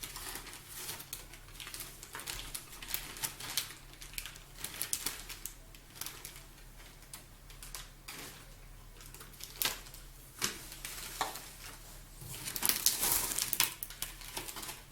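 Packaging being handled and unwrapped: a run of crackles, rustles and light knocks, getting denser and louder around two seconds before the end.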